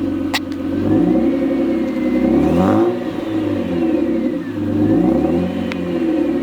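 BMW 520i E39 straight-six exhaust through a drilled muffler, revved up from idle and let fall back twice, with a sharp click near the start and another near the end.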